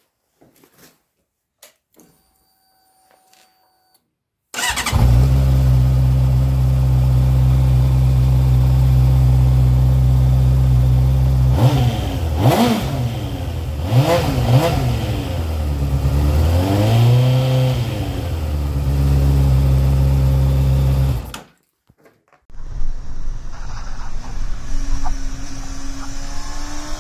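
Honda CB600F Hornet inline-four motorcycle engine: it comes in suddenly at a loud, steady idle, is revved several times with the pitch rising and falling, settles back to idle and cuts off abruptly. After a short gap, a quieter engine-like noise follows, with a rising tone near the end.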